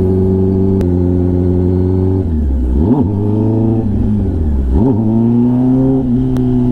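Kawasaki ZX-10R inline-four engine running through an SC-Project titanium exhaust while riding. The engine holds a steady pitch, and twice, a little over two seconds in and again near five seconds, the revs drop and quickly climb back.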